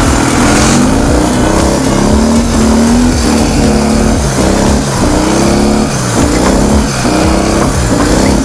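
Ural sidecar motorcycle's opposed-twin engine revving up and dropping back about six times in quick throttle bursts. These bursts are meant to break the rear wheel loose into a drift on snow.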